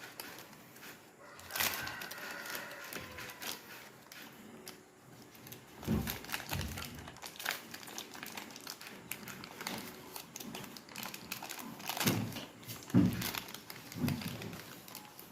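Plastic and cardboard packaging crinkling and rustling as it is handled, with scattered clicks and a few soft thumps.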